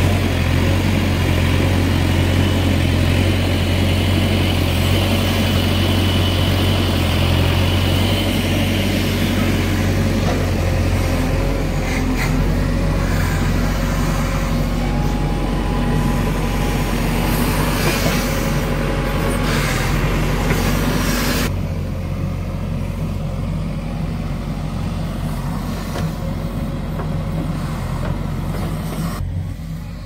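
JCB 3DX backhoe loader's diesel engine running and working as the backhoe arm digs and lifts a bucket of mud. About two-thirds of the way through, the higher-pitched part of the sound drops away and the engine runs on lower and a little quieter.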